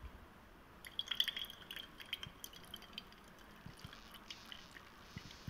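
Gravity filtration: cold water carrying acetanilide crystals is poured from a glass beaker into a paper-lined glass funnel, trickling and dripping with many small irregular glassy ticks, starting about a second in.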